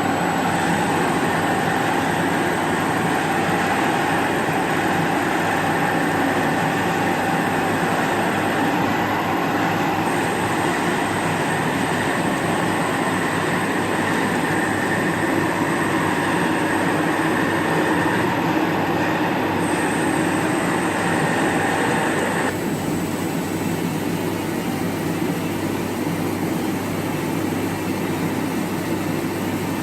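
CNC lathe with driven tooling machining a differential case: a steady, loud machine noise with a constant low hum and a thin high whine that drops out briefly twice. About three quarters of the way through, the brighter, higher part of the sound falls away and a duller steady running continues.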